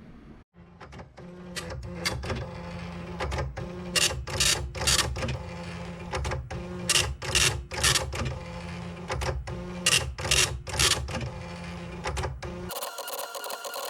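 Commodore 1526 dot-matrix printer printing: a steady low motor hum under a run of short, loud print-head passes, often two in quick succession. About a second before the end the sound switches abruptly to a steady hum of several even tones.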